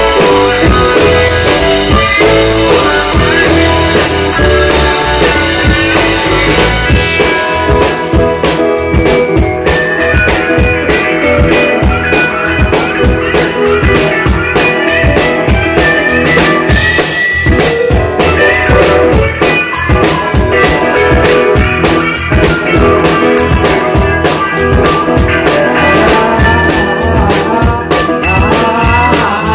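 Live band playing rock music, loud and steady, with a drum kit keeping a continuous beat under electric guitar, bass and keyboard.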